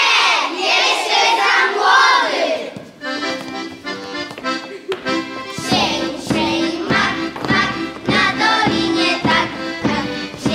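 Accordion playing a lively folk dance tune over a steady drum beat. Children's voices sing over it during the first few seconds and again from about six seconds in.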